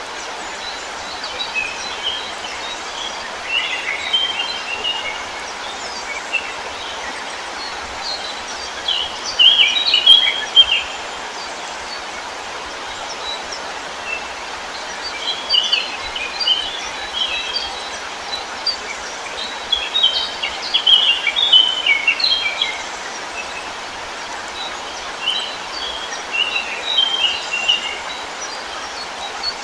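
Songbirds singing in short twittering phrases that recur every five or six seconds, over a steady rushing background of water or wind.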